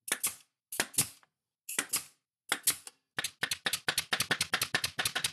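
Pneumatic brad nailer firing brads through an HDPE strip into plywood, each shot a sharp click. Four shots come under a second apart, then a fast run of about eight a second from about three seconds in.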